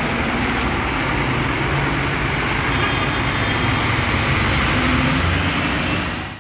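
Intercity coach's diesel engine running as the bus pulls away and drives past at low speed, over steady traffic noise.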